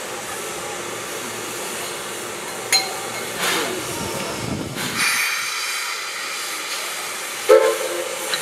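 Standing steam locomotive dressed as Thomas the Tank Engine (Oigawa Railway's C11 227) hissing steam steadily. A sharp metallic knock comes nearly three seconds in, the hiss swells about halfway through, and a short louder sound comes near the end.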